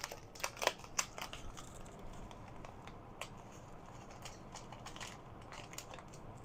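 Faint crinkling and scattered small clicks from handling dried oregano as it is added to the pot, busiest in the first second or so, then a few sparse ticks.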